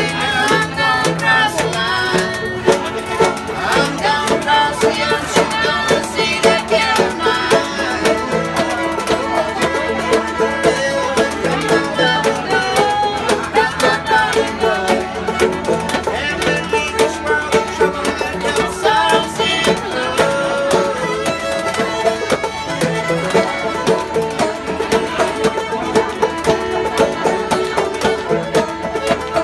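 A bluegrass trio playing a tune: a fiddle carries the melody over banjo picking and a washboard scraped in a steady rhythm.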